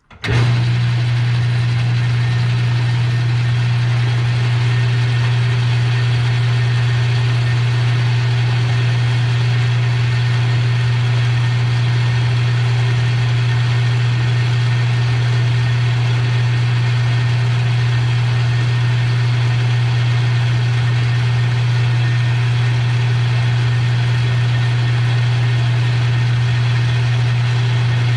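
Metal lathe switched on and running steadily while taking a 40-thousandths cut on a hinge pin: a loud, constant low hum with an even machining hiss over it.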